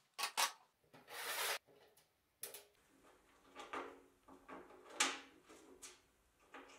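Small metal parts of a homemade compass tool being handled and set down on a metal workbench: a run of light clicks and scrapes, with a longer rub about a second in and the sharpest click about five seconds in.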